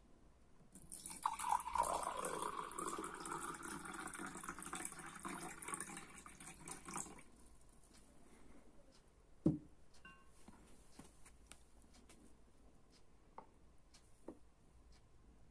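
Water pouring into a drinking glass for about six seconds, filling it nearly to the brim. A single dull knock follows a couple of seconds after the pouring stops, then a few faint clicks.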